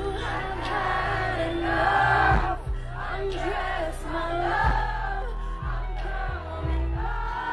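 Live pop song over a concert sound system: female group vocals over a heavy bass beat, with crowd voices.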